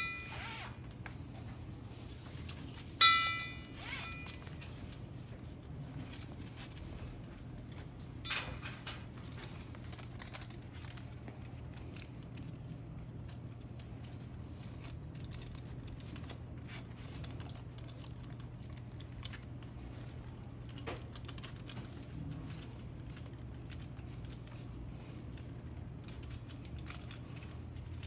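Nylon webbing being handled and threaded around a scuba cylinder: faint rustling and small knocks, with a sharp metallic clink about three seconds in that rings for about a second, and a duller knock a few seconds later. A steady low hum runs underneath.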